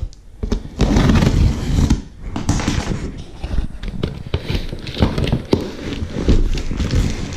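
Knife slitting the packing tape and cardboard along a shipping box's seams, with scraping, crackling cardboard and knocks as the box is turned over and its flaps pulled apart.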